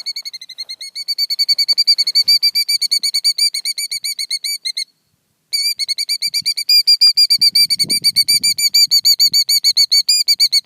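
Killdeer giving its rapid, high alarm trill, about eight notes a second, breaking off for half a second about five seconds in and then carrying on. It is the agitated calling that goes with its broken-wing distraction display near the eggs on its ground nest.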